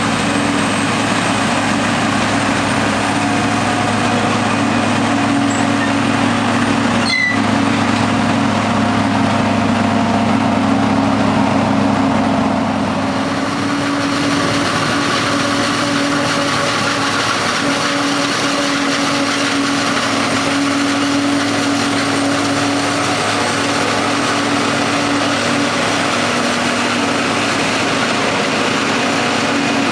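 Big farm diesel engines, the forage harvester's and tractors', running steadily while chopping corn for silage. There is a sharp click about seven seconds in, and the engine note drops a little about thirteen seconds in.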